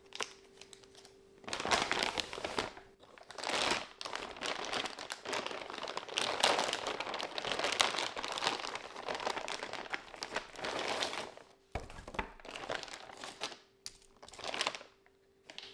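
Plastic packaging crinkling and rustling in irregular bursts as it is handled, starting about a second and a half in, with a brief pause near the end.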